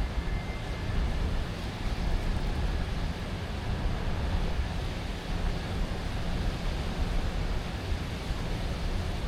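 Steady city ambience: a low rumble of traffic under an even wash of distant noise.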